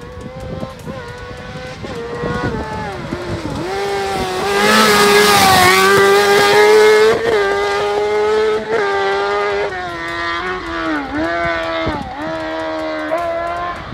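Kartcross buggy's motorcycle engine revving hard through the gears, its pitch climbing and dropping again and again with each shift and lift. It grows loudest about five seconds in as the buggy passes, then eases away.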